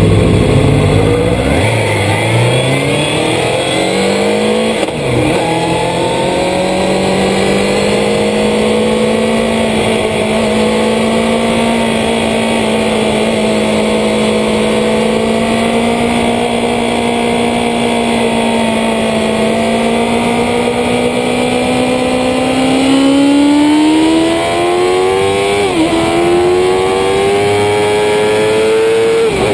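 Onboard sound of a road-racing sport motorcycle's engine pulling away. The revs climb over the first few seconds and dip briefly about five seconds in at a gear change, then hold a nearly steady pitch for a long stretch. From about three quarters of the way through the revs climb again, with upshifts near the end, under a steady rush of wind and road noise.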